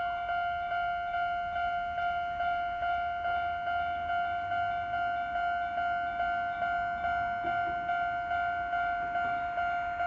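Japanese railway level-crossing alarm: the electronic bell of the crossing signal ringing repeatedly in an even, quick rhythm of about two and a half strikes a second, sounding while the gates are down for an approaching train.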